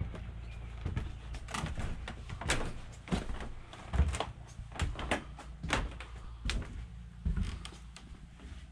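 Footsteps on wooden porch boards and cabin floor, an unhurried walking pace of short knocks, with a heavier thump about four seconds in.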